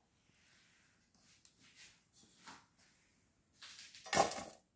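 Buttered cookie-crumb crust mixture handled and put by hand into a metal springform pan: a few faint handling sounds, then a louder, short rustling scatter about four seconds in.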